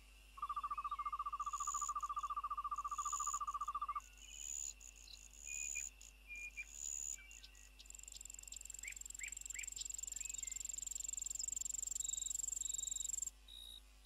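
Insect-like trilling and chirping calls. A loud, fast-pulsing trill lasts about three and a half seconds. Scattered short chirps follow, then a high, steady whine starts about eight seconds in and stops shortly before the end.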